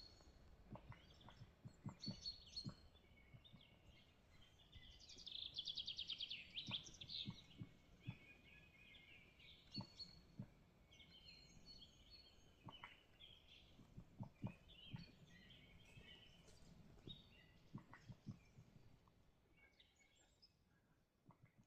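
Faint birdsong from several birds, with chirps and whistled calls throughout and a fast trill of rapidly repeated notes about five seconds in. Scattered soft low knocks run under the calls.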